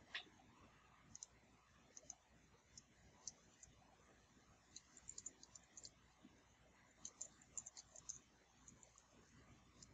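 Faint keystrokes on a computer keyboard: scattered single clicks, then quick runs of typing about halfway through and again near the end.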